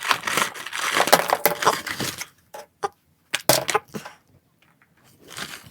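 Plastic food-delivery packaging crinkling and crackling as it is unwrapped, then a few separate sharp clicks and taps with short quiet gaps between.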